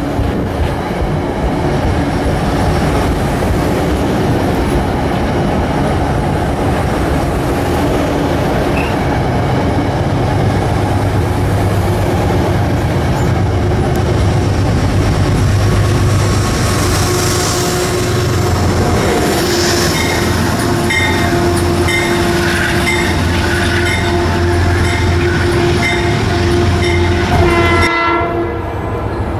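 A train running past with a steady low rumble; in the second half a train horn sounds, and its tones fall away just before the end.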